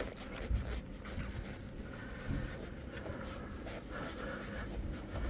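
Rag wiping and scrubbing across a dirty plastic panel in the engine bay, a dry scratchy rubbing in short strokes, with a soft bump about half a second in and another a little past two seconds.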